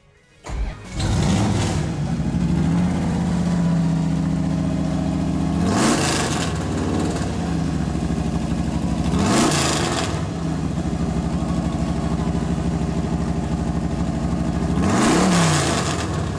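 1965 Dodge Coronet drag car's V8 running hard through open, uncorked exhaust headers. It comes in about half a second in, and its pitch sweeps up and drops sharply three times, about six, nine and fifteen seconds in.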